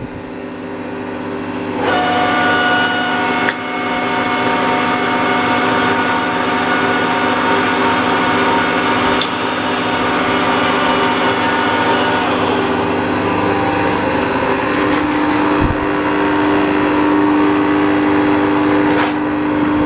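C6250B metal lathe running, its geared headstock and feed gearing giving a steady multi-toned gear whine. About two seconds in, the whine grows louder with extra higher tones; near the end one tone steps up in pitch, with a few clicks and a single low knock from the controls.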